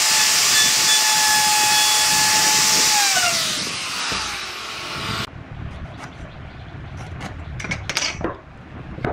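Handheld electric wood router (1850 W, 22,000 rpm) running at full speed with a high whine as it routs pine, then switched off about three seconds in, its pitch falling as the motor spins down. After that come quieter rubs and knocks of wooden beams being handled on a bench, with one louder knock near the end.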